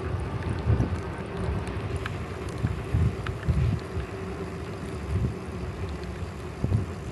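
Wind buffeting the microphone of a camera mounted on a moving bicycle: irregular low rumbling gusts over a steady noise, with a faint steady hum underneath.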